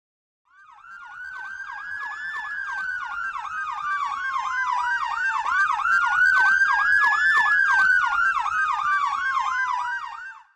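Fire engine sirens: an electronic siren yelping in fast sweeps, about three or four a second, together with a mechanical siren, the Federal Q2B, that winds up and coasts down twice. They grow louder toward the middle and fade just before the end.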